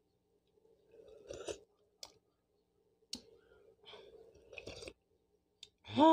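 Eating noodle soup with a spoon: a few light clicks of a plastic spoon against the bowl and soft eating and chewing noises. Near the end comes the loudest sound, a short hummed "mmm" of enjoyment that falls in pitch.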